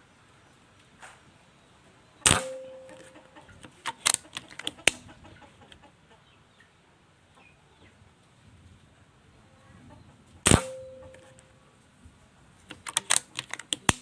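Two shots from a Marauder PCP air rifle, about eight seconds apart, each with a brief metallic ring. A quick run of clicks follows each shot as the bolt is cycled to load the next pellet.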